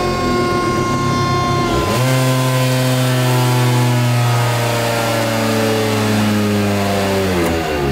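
Tuned Vespa PX two-stroke engine with a Quattrini cylinder running on the dyno. About two seconds in the sound changes, then its pitch sinks slowly, with a quick dip and recovery near the end.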